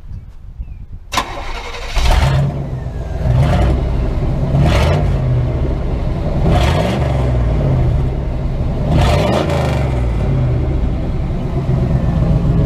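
Chevy 305 V8 on a straight-piped exhaust, with no catalytic converters or muffler, started about a second in and catching, then running loud with about five quick revs of the throttle.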